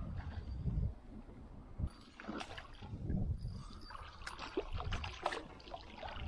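Water splashing and trickling beside a fishing raft while a trout is landed, with scattered knocks and low rumbles.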